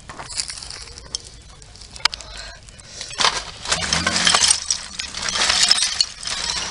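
Bonfire with a television set burning in it, crackling and popping, with sharp clicks and clinks of the set's glass cracking in the heat. The crackling grows much louder and denser about three seconds in.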